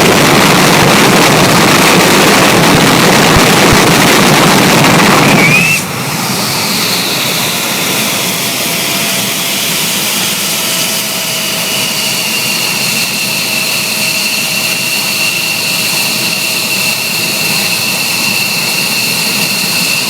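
Turbofan jet engine running: a loud, even roar that drops abruptly about six seconds in to a quieter, steady run with a high turbine whine of two or three held tones.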